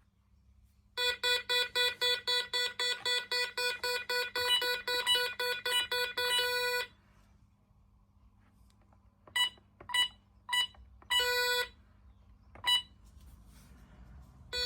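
Gardtec 370 intruder alarm system beeping. Its electronic tone pulses rapidly, about three to four beeps a second, for roughly six seconds, then stops. After a pause come a few short single beeps and one slightly longer beep.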